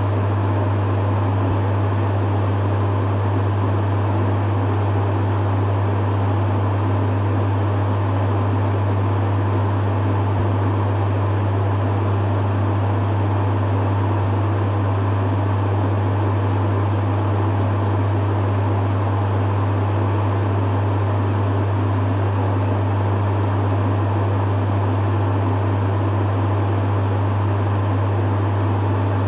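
Dehumidifier running steadily: a constant low hum under the even rush of its fan.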